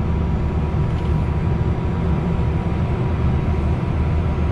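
Cessna Citation business jet's turbofan engines idling on the ground just after start, settled and stable: a steady low rumble with a thin steady whine, heard from inside the cockpit.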